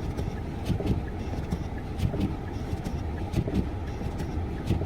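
A front-wheel-drive car's engine running as it pulls away through deep snow, an uneven low rumble.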